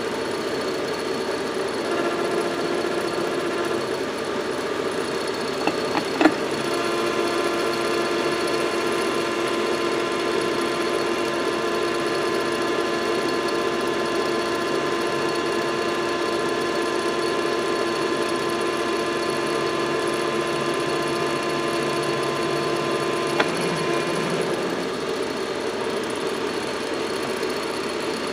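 Metal lathe running steadily with a whine, spinning a tractor starter armature while the cutting tool takes a light skim cut across its copper commutator. A couple of sharp ticks stand out, about six seconds in and near the two-thirds mark.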